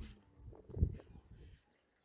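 Heavy footsteps sinking into deep snow: two dull thuds, one at the start and a louder one just under a second in.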